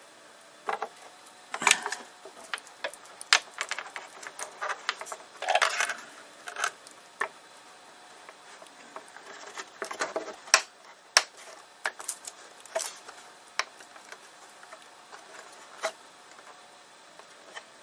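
Irregular clicks, taps and light clatter of small hard parts being handled while an SSD and its metal mounting bracket are fitted. The sounds are busiest in the first half and sparser near the end.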